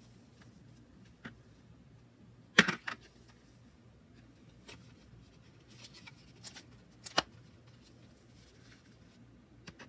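Hands handling a guidebook: a few light clicks and taps, the loudest a quick cluster of three about two and a half seconds in and another sharp tap about seven seconds in.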